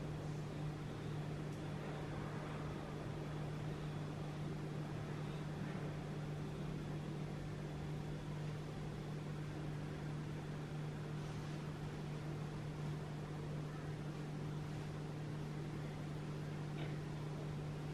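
A steady low hum with a faint even hiss behind it, unchanging throughout.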